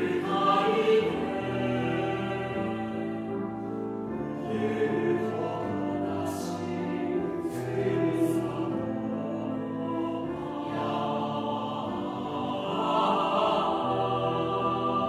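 High school choir singing a Japanese choral song in sustained, full chords, with sharp 's' sounds of the words standing out in the middle.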